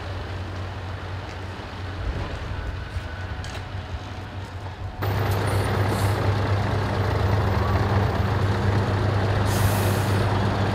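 Diesel truck engines running. About halfway through, a Scania tractor unit with a loader crane drives slowly past close by, its engine a steady, louder drone. A short hiss of compressed air, like an air brake, comes near the end.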